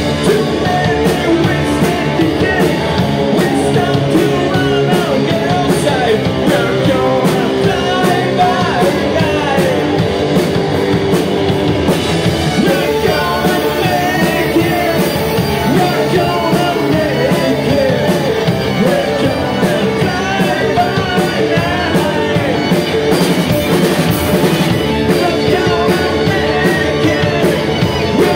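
Live rock band playing a song: two electric guitars, electric bass and a drum kit, with a man singing lead into the microphone.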